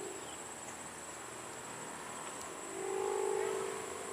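Kite hummer (sendaren) droning in the wind: a low fluttering hum that swells up about three seconds in. Crickets chirp steadily underneath.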